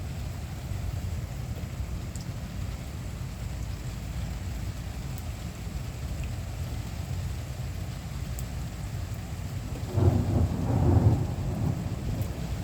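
Thunderstorm: steady rain with a low rumble, and a louder roll of thunder about ten seconds in.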